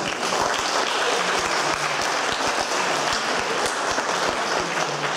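Audience applauding, many hands clapping; it breaks out all at once and holds steady.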